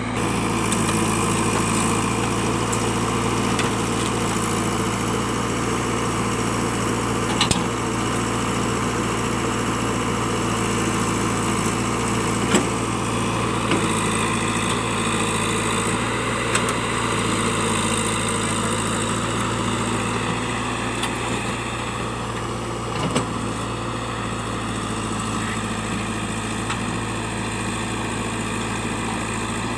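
JCB backhoe loader's diesel engine running steadily, with a few brief knocks over the engine sound.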